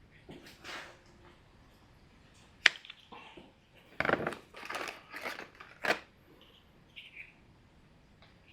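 Bench work on a cut power cord: a sharp click about two and a half seconds in, then a short run of scraping and snapping sounds from hand tools and wire being handled.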